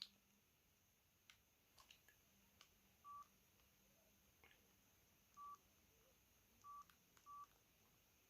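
Four short, faint mobile phone keypad beeps, all at the same pitch and spaced irregularly a second or two apart, with a few faint clicks between them.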